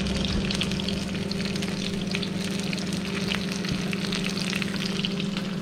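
Turbot fillet frying skin-side down in hot olive oil: a steady sizzle with fine crackles as the skin crisps. A steady low hum runs underneath.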